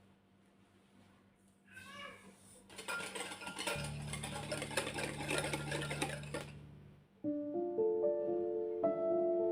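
A small electric motor runs with a steady hum under a noisy clatter for about three seconds, the kind made by a kitchen appliance, and stops about seven seconds in. Soft piano music then begins.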